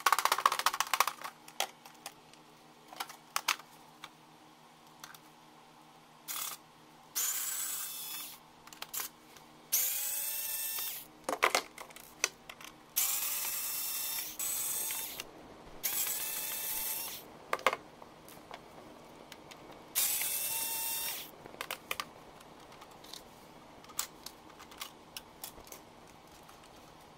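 Electric precision screwdriver running in five short bursts of one to two seconds, its motor whine rising as each starts, backing screws out of a robot vacuum's plastic chassis. Between the bursts come light clicks and knocks of plastic parts and screws being handled.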